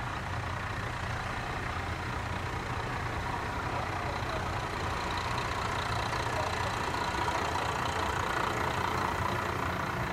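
KiHa 54 diesel railcar idling at a standstill: a steady low engine hum that grows a little louder in the second half.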